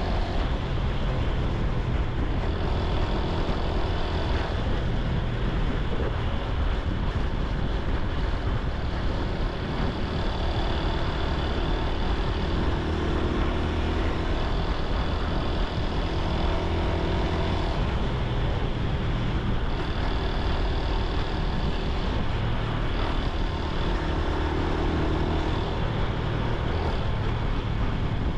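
Honda Super Cub C125's air-cooled single-cylinder four-stroke engine and exhaust running while riding, with a steady rush of road and wind noise.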